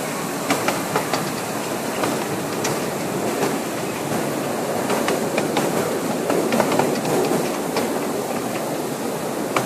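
Miniature-railway train cars rolling along one-foot-gauge track: a steady rumble of wheels on rail with irregular sharp clicks as the wheels pass over rail joints.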